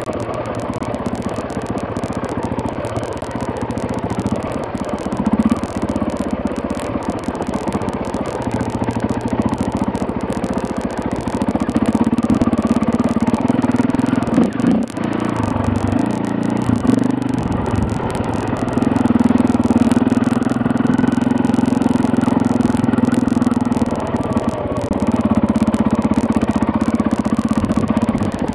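KTM 450 EXC single-cylinder four-stroke enduro engine running at low revs while ridden slowly over a rough stony track, with clatter from the tyres and bike over the rocks. The engine grows louder in several stretches in the second half as the throttle is opened, and eases briefly about halfway through.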